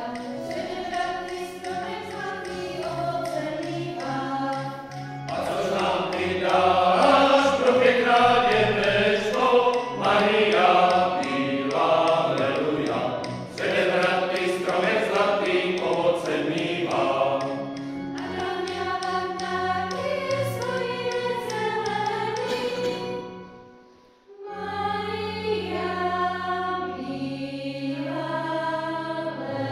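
Women's and men's folk choirs singing a Christmas carol unaccompanied. The singing is louder and fuller for a stretch in the middle, breaks off for about a second near the end, then starts again.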